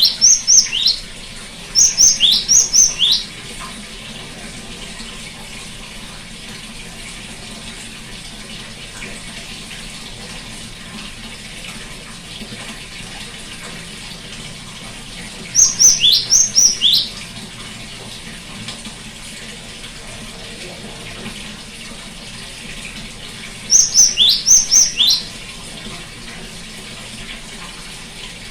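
Great tit singing: four short bursts of quick, high, repeated notes, each note dropping sharply in pitch, with long gaps between bursts, over a steady background of running water.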